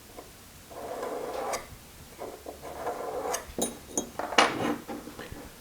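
Pieces of steel being handled on a workbench: a scraping rub about a second in, then a series of light metallic clicks and taps, a few with a brief ring.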